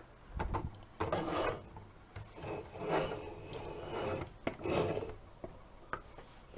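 Hands handling a plastic toy garbage truck close to the microphone: plastic scraping and rubbing in four bursts, with a few sharp clicks in between.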